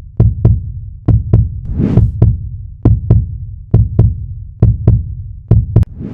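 Deep, booming thuds in pairs, a pair about every second, each with a low rumbling tail.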